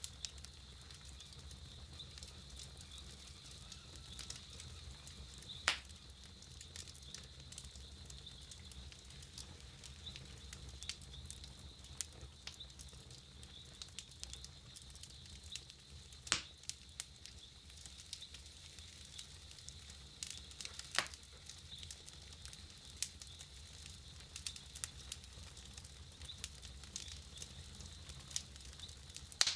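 Wood campfire crackling: a steady scatter of small pops and ticks, with three louder snaps, about six, sixteen and twenty-one seconds in.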